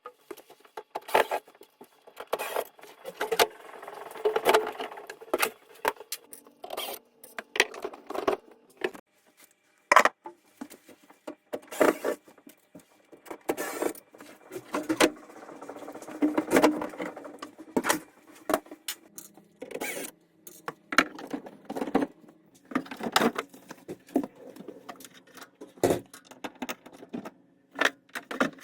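Tools and metal parts being handled while a washing machine is repaired: irregular clanks, clicks and rattles, with a faint steady hum underneath at times.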